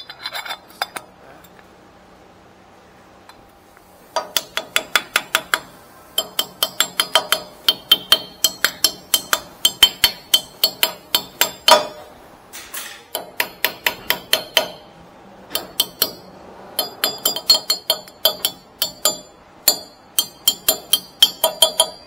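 A hammer striking metal in rapid blows, about four or five a second, with a ringing clang on each strike. The blows come in several bursts with short pauses between them, as a part is knocked loose or into place during a front wheel bearing hub replacement.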